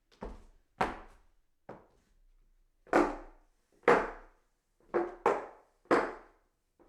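Footsteps walking up hollow wooden stairs: about eight separate footfalls, each a short wooden knock, at an uneven, unhurried pace, with two close together past the middle.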